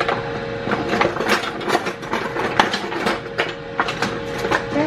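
Kitchen utensils clattering and knocking, a run of irregular sharp clicks over a steady hum.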